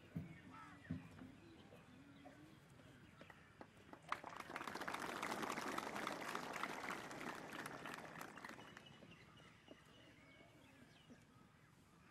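Crowd of spectators applauding, a dense patter of clapping that swells from about four seconds in and dies away by about nine seconds.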